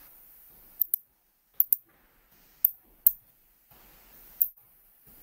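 Sharp, short clicks at a computer: about seven, including two quick pairs about a second in, over faint background hiss.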